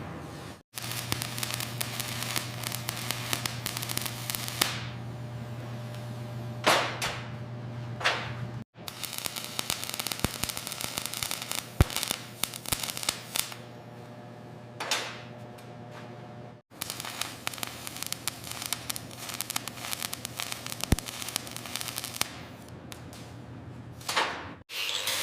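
Electric arc welding crackling and sizzling steadily over a low hum, as the deep crack is welded up. The crackle cuts off abruptly and restarts about every eight seconds, with a few brief falling whooshes in between.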